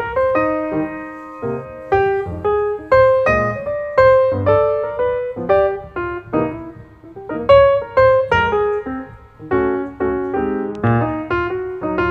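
Background music: solo piano playing a gentle melody with a bass accompaniment.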